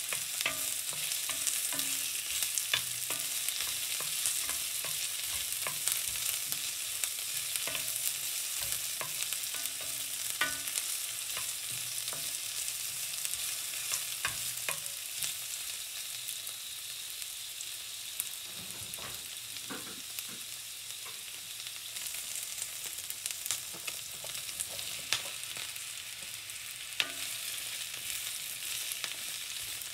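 Sliced onion, carrot and chilli sizzling in olive oil in an enamelled cast-iron pan, with a steady hiss and scattered clicks and scrapes as a wooden spatula stirs them.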